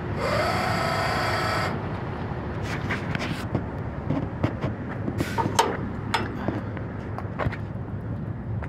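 A loud burst of compressed air hissing from the car-hauler truck's air system for under two seconds, then scattered light metallic clicks and knocks over the steady low rumble of the idling truck.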